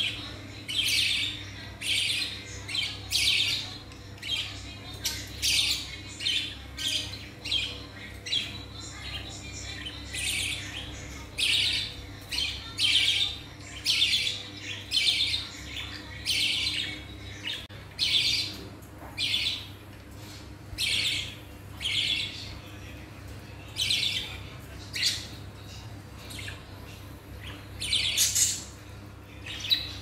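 Several caged budgerigars chirping, short high calls coming one after another, about one or two a second.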